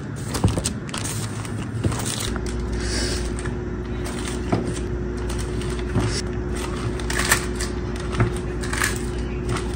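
Frozen shami kebabs being handled and dropped into a plastic zip-lock bag: scattered light knocks and rustles. A steady low appliance hum starts about two seconds in.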